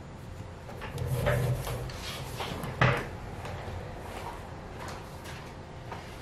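Handling noises on a wooden tabletop as a lump of soft putty is pressed down around a small metal earring piece: small rustles and taps, with one sharper knock about three seconds in.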